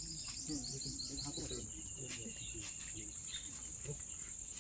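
Steady high-pitched drone of insects, such as crickets or cicadas, with a quick run of short chirps in the first second and a half.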